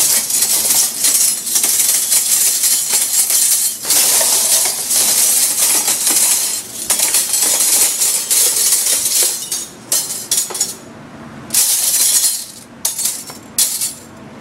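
Dishwashing: a steady hiss of spraying water with dishes and glassware clattering. In the last few seconds the spray breaks into short bursts with pauses between.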